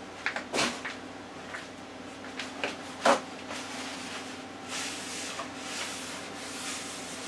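Kitchen handling noises: a few sharp clacks, the loudest about three seconds in, then a paper towel rubbing over the countertop, over a steady low hum.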